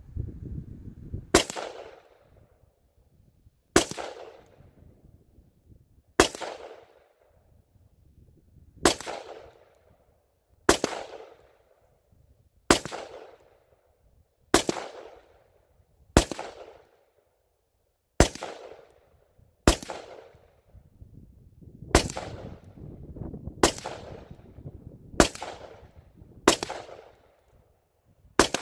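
Custom-built AR-15 rifle fired semi-automatic, about fifteen single shots spaced a second and a half to two and a half seconds apart, each followed by a brief echo.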